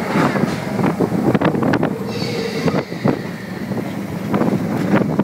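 Expedition Everest roller coaster train running along its steel track, its wheels rumbling and clattering with frequent sharp knocks, and wind buffeting the microphone.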